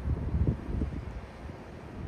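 Wind buffeting the microphone in irregular low rumbling gusts, strongest in the first second.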